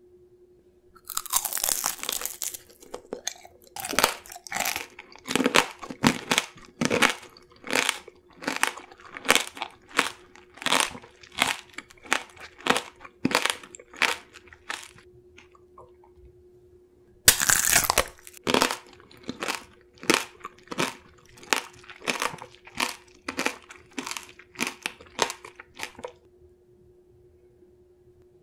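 Close-miked tanghulu, fruit coated in a thin hard sugar shell, being bitten: a loud crackling crunch about a second in, then chewing in sharp crunches about one and a half to two a second. A second bite near the middle brings another loud crackle, followed by more crunchy chewing that stops a couple of seconds before the end.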